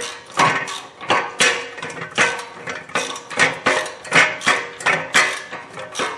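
Hand tools working on the mounting bolts of a new rear wheel hub: a run of sharp metallic clicks and clinks, about two a second, as the bolts are snugged up.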